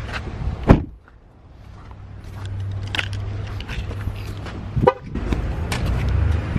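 Low rumble of a car, broken by two short, loud blips about four seconds apart.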